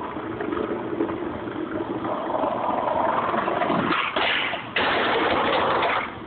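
Skateboard wheels rolling on pavement, getting louder as the skater approaches, then about four seconds in a loud scrape of the board along the steel stair handrail that lasts over a second and cuts off abruptly.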